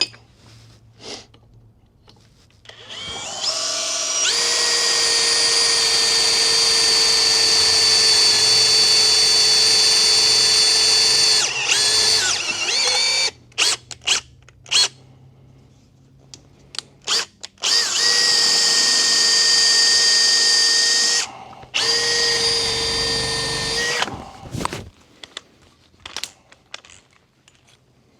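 Electric drill running in several stretches: a long steady whine of about eight seconds, then short stop-start bursts on the trigger, then two more runs of a few seconds each, drilling into a metal cab-latch part.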